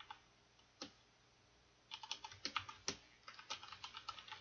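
Typing on a computer keyboard: one keystroke a little under a second in, then a quick run of keystrokes from about two seconds in.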